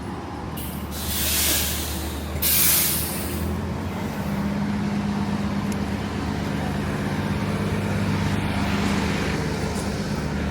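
City bus at a stop: two loud air-brake hisses in the first few seconds, then its engine running steadily, a little louder from about four seconds in.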